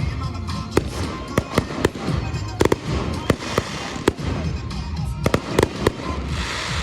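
Fireworks shells bursting in irregular succession, sharp bangs and cracks every half second or so, over music played through a loudspeaker sound system.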